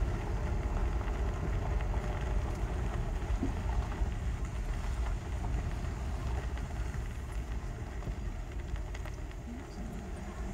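Car driving slowly on a gravel road, heard from inside the cabin: a steady low rumble of engine and tyres, easing a little toward the end.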